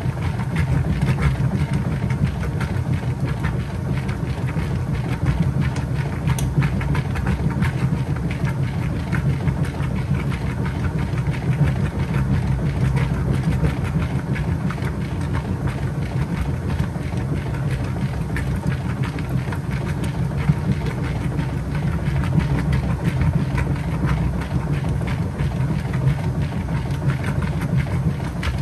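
Kenmore 80 Series top-loading washing machine agitating a small load in its wash water on the heavy duty cycle. Its drive gives a steady, continuous mechanical hum.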